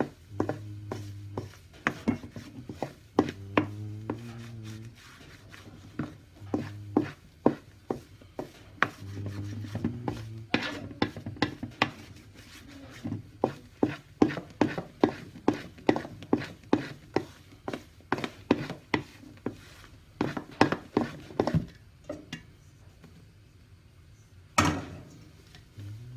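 Wooden spatula knocking and scraping against a stainless steel mixing bowl while flour is folded by hand into whipped egg batter for castella: a quick run of sharp taps, about two to three a second, with one louder knock near the end. A low hum comes and goes in the first half.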